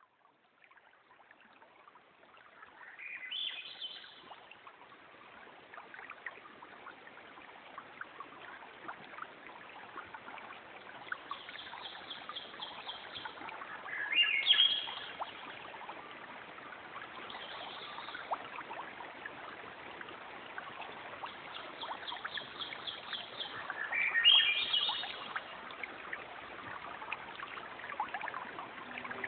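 Birds calling over the steady rush of a waterfall, fading in at the start: a loud rising call three times, about ten seconds apart, with quick trilled notes in between.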